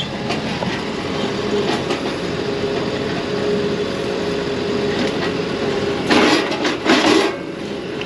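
Engine of a compact tracked loader running steadily, holding a log in its grapple. Near the end, two short, rough scraping knocks are heard over it.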